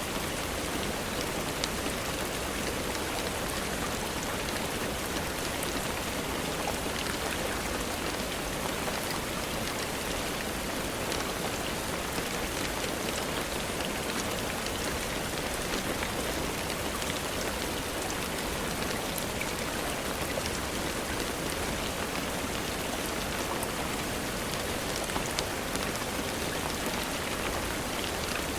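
Steady rainfall: an even hiss of rain falling on surfaces, with a few faint ticks here and there.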